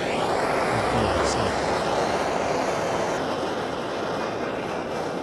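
Hand-held butane torch burning with a steady hiss of flame, played over the cut edges of plywood to char them.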